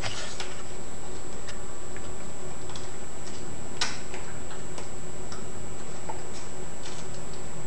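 Scissors snipping magazine paper: light clicks at an uneven pace, the clearest about four seconds in.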